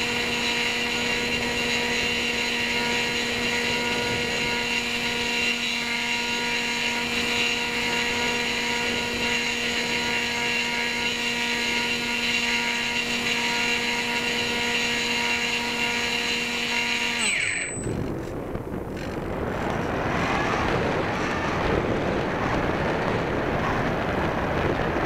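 Electric motor and propeller of a small RC motor glider, heard from its onboard camera, running with a steady whine. About 17 seconds in the motor is cut and winds down in a brief falling whine, leaving only wind rushing past the airframe as the plane glides.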